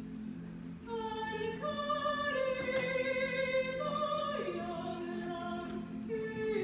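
Vocal ensemble singing in a classical style, holding long notes that step from pitch to pitch over steady lower parts.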